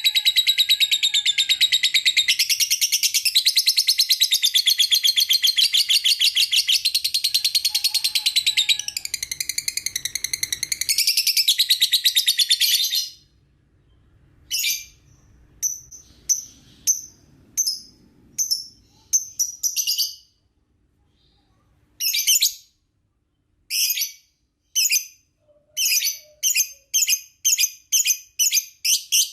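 Lovebird singing a long, rapid, high-pitched chattering trill, which breaks off about 13 seconds in into short separate bursts with silent gaps and runs on steadily again near the end. It is the kind of song used to rouse young lovebirds.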